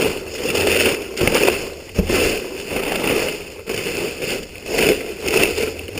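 Crinkling and rustling of packaging being rummaged through, with a sharp knock about two seconds in.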